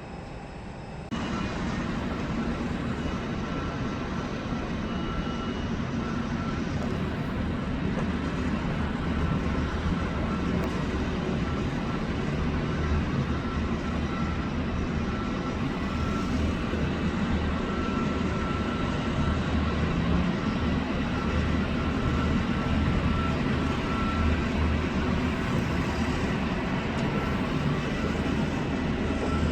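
Jet airliner engines on a landing approach: a steady rushing noise with a low rumble and a faint high whine that comes and goes, growing slowly louder as the aircraft comes closer. The sound steps up suddenly about a second in.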